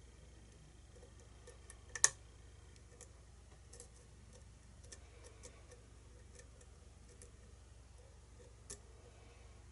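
Faint, irregular metallic clicks of a hook pick setting and lifting pins in a pin-tumbler lock cylinder during single-pin picking, the loudest about two seconds in and another sharp one near the end.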